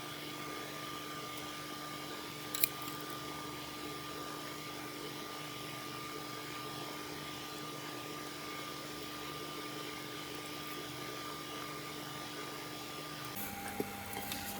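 A small electric motor running with a steady whine. Its pitch steps down near the end, and there is a single sharp click about two and a half seconds in.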